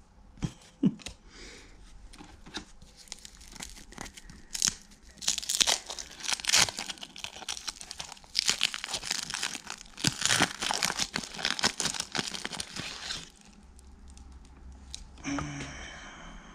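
Foil wrapper of a 1991 Pacific football card pack being torn open and crinkled by hand: a few sharp clicks at first, then a run of crackling rips and crinkles from about four seconds in until about thirteen seconds in.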